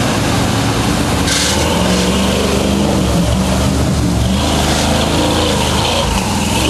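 Chevrolet K5 Blazer's engine running under load as it drives through deep muddy water, with mud and water splashing off the tyres. Bursts of spray come about a second in and again from about four and a half seconds.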